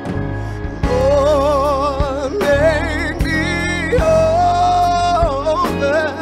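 A woman sings a gospel solo into a microphone with heavy vibrato, holding one long note midway, over a backing band with steady bass and occasional drum hits.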